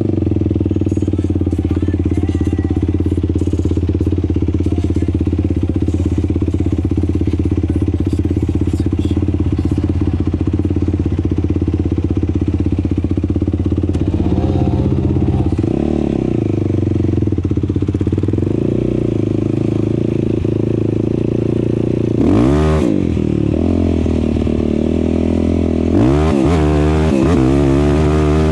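Off-road vehicle engine idling steadily, with short throttle blips about halfway through and again later, then revving up near the end as it pulls away on the sand.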